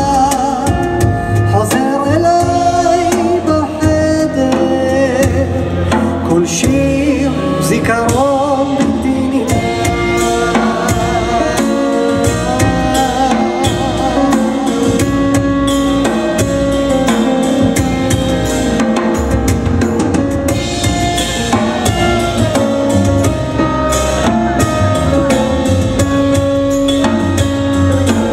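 Live band music: a Roland stage piano, upright double bass and drum kit play under a wavering lead melody, with a steady drum beat.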